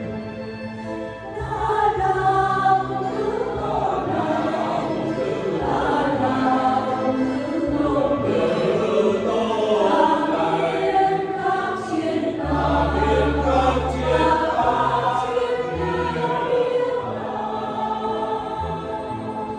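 Mixed choir of men and women singing a Vietnamese Catholic hymn into handheld microphones, over held low accompaniment notes from an electronic keyboard.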